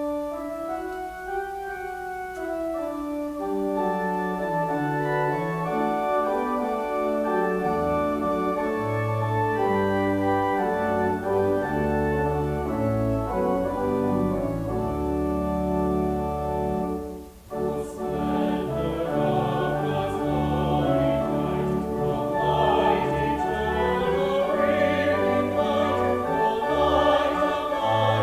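Church organ playing a hymn introduction in held chords, with a deep bass line coming in about eight seconds in. After a short break about two-thirds through, a small group of singers starts singing the hymn with the organ.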